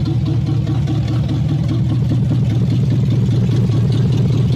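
An engine running steadily at a low, even pulsing beat, like a vehicle idling or moving slowly.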